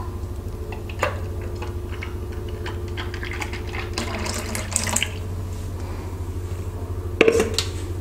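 Thick banana milkshake poured in a thin stream from a blender jar into a glass, filling it, over a steady low hum. A knock near the end.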